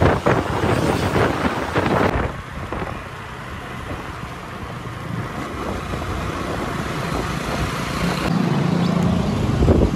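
A moving vehicle with wind buffeting the microphone: steady road and wind noise, louder for the first two seconds, then changing abruptly and running on evenly, with a low hum near the end.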